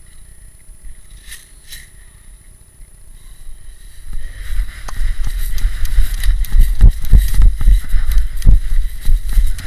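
Footsteps through dry leaf litter with a loud, uneven low rumble of wind and jolting on a head-mounted camera's microphone. It starts about four seconds in after a quiet opening.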